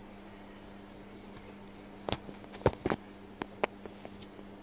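Fingers handling the phone that is recording, giving several short sharp clicks and taps in the second half over a faint steady electrical hum.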